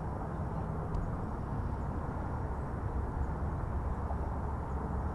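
Steady low rumbling outdoor ambience.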